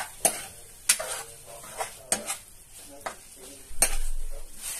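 Steel ladle stirring sauce-coated vegetables in a frying pan, with irregular clinks and scrapes against the pan over a light sizzle; the scraping gets louder near the end.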